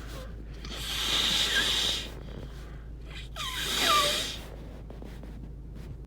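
Two congested nose blows into a tissue, each lasting a little over a second, from a nose stopped up with a cold. The second blow has a squeaky whistle that dips in pitch.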